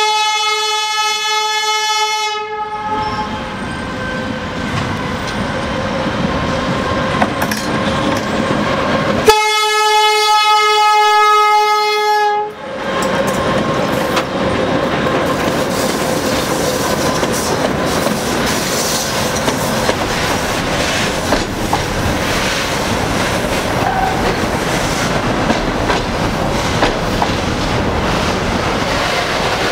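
2TE116 diesel locomotive sounding its horn in two long steady blasts: one of about two seconds at the start, and one of about three seconds near ten seconds in, with the locomotive's engine growing louder between them. From about thirteen seconds on, the locomotive and the container flatcars pass close by with steady wheel clatter over the rail joints.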